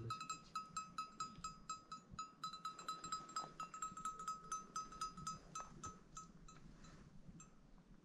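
A small livestock bell jangling rapidly, about five strikes a second, as the animal wearing it moves. The ringing thins out and fades away about six to seven seconds in.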